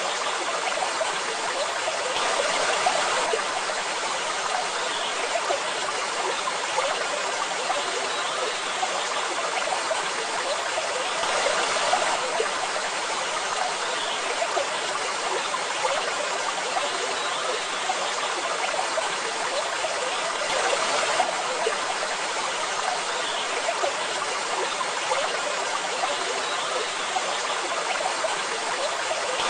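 Water pouring steadily over a waterfall, an even rushing splash that swells slightly about every nine seconds.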